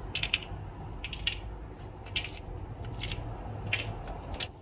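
Pepper mill grinding pepper onto a salad in short bursts of crisp crunching clicks, about five bursts roughly a second apart.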